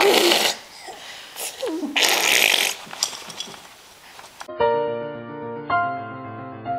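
A baby blowing raspberries, two short spluttering lip buzzes. About four and a half seconds in, an upright piano takes over as a baby presses its keys, a few notes at a time sounding and ringing on.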